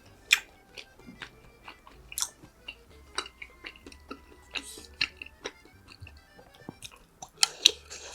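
Close-miked mouth sounds of someone chewing and biting food: a string of short sharp clicks and smacks, strongest just after the start and twice near the end. Quiet background music runs underneath.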